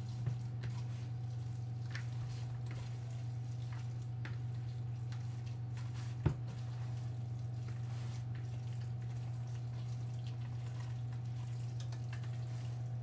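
Hands squeezing and mixing raw meatloaf mixture with crumbled crackers in a bowl: soft, wet squishing and faint ticks, with one sharper click about six seconds in. A steady low hum runs underneath.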